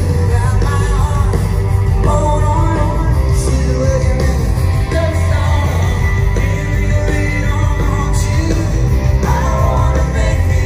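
Live band music played loud through an outdoor stage PA: a singer over guitar, with heavy bass and drums.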